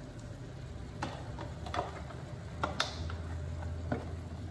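A few light, irregular clicks and ticks, the sharpest nearly three seconds in, over a faint steady low hum.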